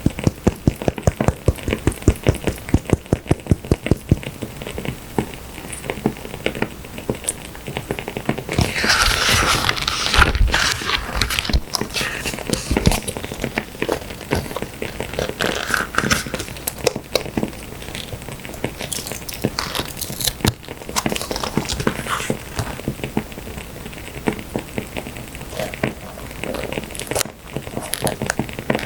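Crackling wood fire mixed with paper and stickers being handled. There is a rapid run of sharp clicks in the first few seconds and a burst of paper rustling around nine to eleven seconds in.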